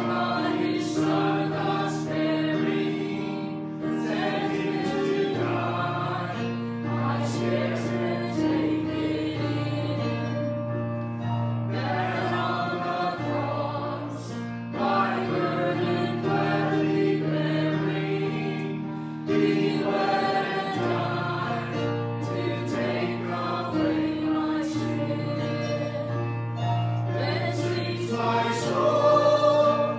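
Gospel music: a choir singing over long held chords in the low accompaniment.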